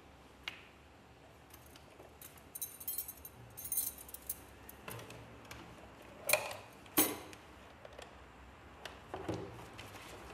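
Small items being handled and packed into an open case: scattered light clinking and rattling, then two louder knocks about a second apart.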